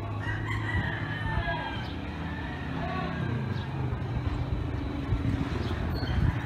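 Motorcycle engine idling steadily, with people talking in the background.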